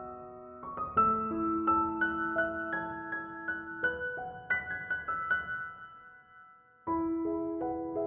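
Gentle background piano music, a melody of single notes over held lower notes, fading away about six seconds in and starting again a second later.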